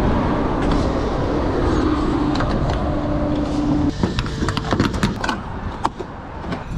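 A steady hum over a rush of background noise for about the first four seconds, then a run of sharp metallic clicks and clanks as a fuel nozzle is lifted from the pump and fitted into a car's filler neck.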